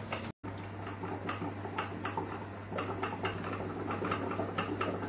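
Pot on an induction hob simmering: irregular soft ticks and bubbling over a steady low hum.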